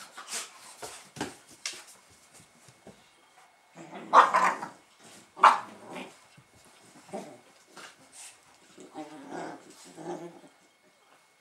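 Fila Brasileiro puppies play-fighting, growling and scuffling, with two loud sharp barks about four and five and a half seconds in.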